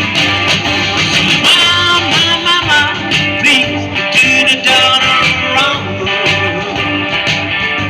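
Live blues band playing, with a guitar leading over a steady bass and drum beat; the lead notes bend and slide in pitch.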